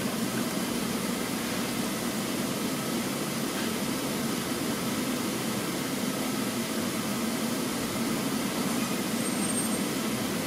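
Steady mechanical hum and hiss of workshop background noise, even in level with no distinct events.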